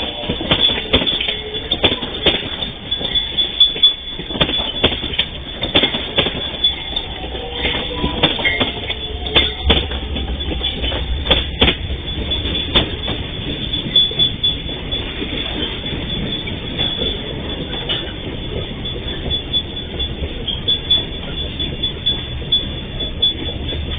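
Two electric commuter trains passing each other at a level crossing: steel wheels clattering over the rail joints in a run of sharp clicks, with some wheel squeal. A heavier rumble comes about eight to sixteen seconds in as the second train goes by, then the sound eases off toward the end.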